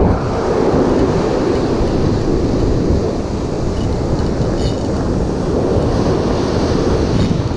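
Wind buffeting the microphone over steady surf breaking on the beach.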